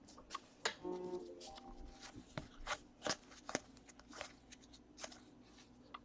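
Baseball trading cards being flipped and slid against one another in the hands: a string of faint, short clicks and rustles.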